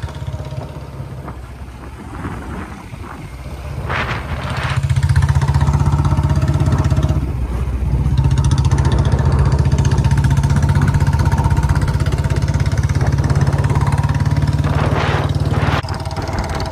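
Motorcycle engine running while riding. It grows louder about five seconds in and holds steady, dips briefly around seven to eight seconds, and drops again near the end.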